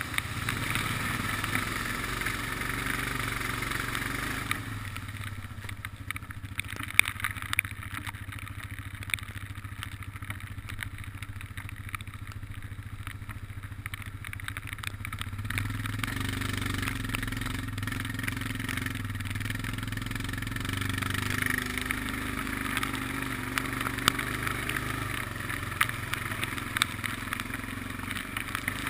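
ATV engine running under way as the quad rides through shallow floodwater, with water splashing and spraying around the machine and many small clicks and knocks. The splash and hiss ease off for a stretch before halfway, then the engine note comes up stronger and the splashing returns.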